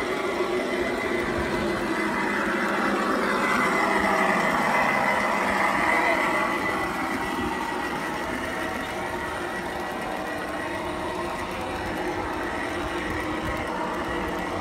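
A garden-scale model freight train running past on its track, a steady rolling rumble that swells and is loudest about four to six seconds in.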